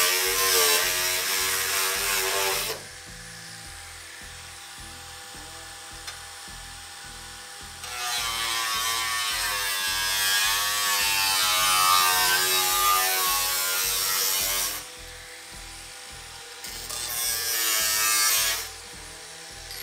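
Angle grinder with a thin cut-off wheel slicing through rusty sheet steel, in three cuts: one ending about three seconds in, a long one in the middle, and a short one near the end. Its whine wavers in pitch as the wheel loads in the metal, with quieter gaps between cuts.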